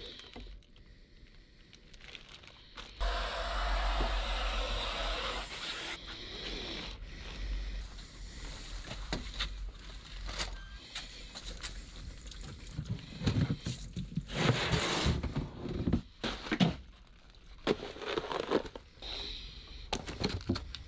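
Handling noises from a plastic zip-top bag and a chest freezer: crinkling and scraping with scattered knocks. A loud rushing noise lasts a couple of seconds about three seconds in, and the knocks come thickest in the last third.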